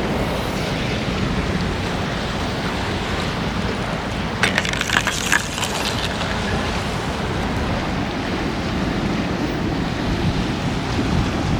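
Strong wind buffeting the microphone, a steady rumbling roar. A brief cluster of clicks and rustles comes about four to five seconds in.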